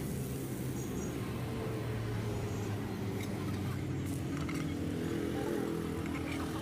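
Street traffic: a steady rumble of passing vehicle engines, with a few faint clicks.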